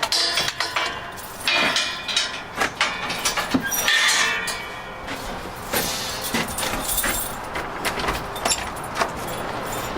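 Footsteps of several people walking down to a basement, with irregular knocks and clatter that are densest in the first half.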